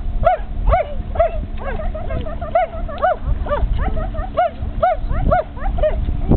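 Newfoundland dog giving a run of short, high yelping cries, about two a second, each rising and falling in pitch.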